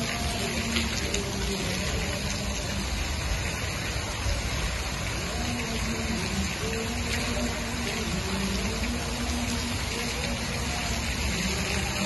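Fountain water jets splashing steadily into a long shallow pool, a constant rush of falling water.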